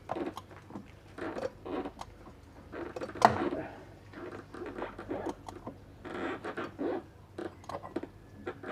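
Irregular scraping, clicking and knocking of hand tools and metal engine parts being worked on a diesel engine, with one sharper knock about three seconds in.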